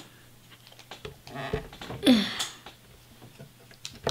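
Small plastic clicks and taps of Qixels cubes being handled and set into the plastic tray of the Qixels 3D maker. About two seconds in there is a brief vocal sound falling in pitch, the loudest thing heard, and a sharper click near the end.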